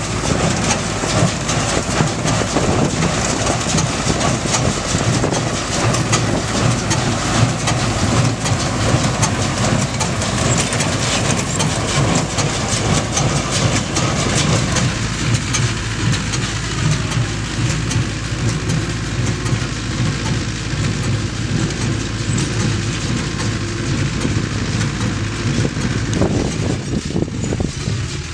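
Ursus C-360 tractor's four-cylinder diesel engine running steadily under load, driving a Sipma Z224 square baler whose plunger and pick-up clatter rhythmically as it bales straw. It grows more distant in the second half as the rig moves away.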